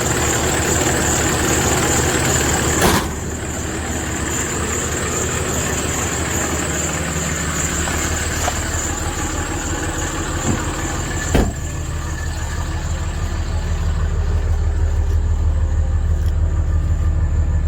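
Dodge Ram 3500 diesel engine idling steadily, with a thin high-pitched whine over it. Two sharp knocks come about 3 and 11 seconds in, and the low engine sound grows louder and more pulsing from about 12 seconds on.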